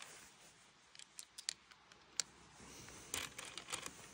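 Faint, scattered clicks and a brief rustle of small hard objects being handled: a few single clicks, then a short cluster of clicks near the end.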